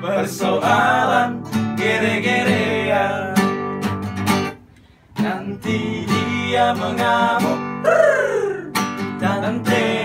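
Nylon-string classical guitar strummed while several men sing along. The music stops briefly about halfway, then picks up again.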